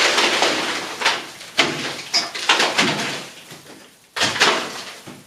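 Rough scraping and crumbling at a lath-and-plaster wall whose plaster is loose and moving: about five sudden strokes, each tailing off, the loudest about four seconds in.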